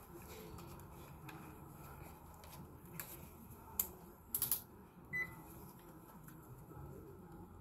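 Faint clicks and rattles of a handheld clamp meter and its test leads being handled, with a quick cluster of clicks about four and a half seconds in and a short high tone just after.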